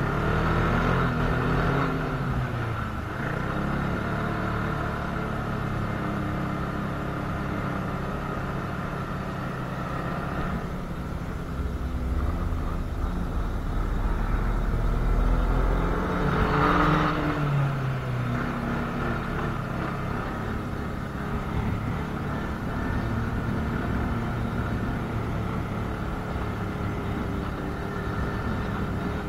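Snowmobile engine running while riding, its pitch rising and falling as the throttle is worked, heard from the rider's seat.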